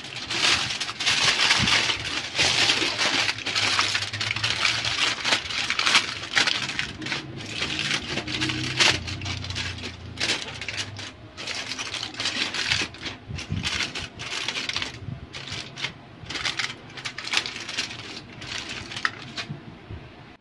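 Aluminium foil crinkling and rustling as hands press and fold it over a roasting pan, in quick irregular crackles that thin out near the end.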